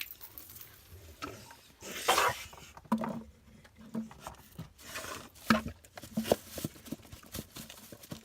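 Dog eating from a dish: irregular lapping, chewing and scraping noises with a few sharper knocks, the loudest about two seconds in.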